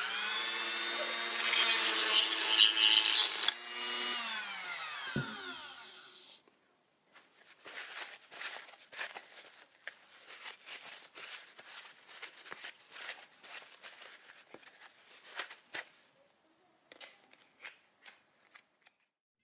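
Dremel 4000 rotary tool running at a steady high speed, briefly louder for a moment, then switched off and winding down with a falling whine over about two seconds. Irregular light clicks and rattles of handling follow for several seconds.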